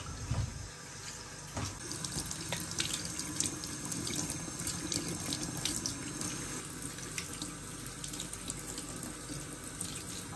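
Water running and splashing, with small clicks and clatters through it, after a low thump at the start.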